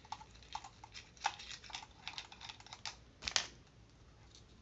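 Ring light parts being handled and fitted together: a quick run of small clicks and taps, with two louder knocks about a second in and a little after three seconds, then only a few faint clicks.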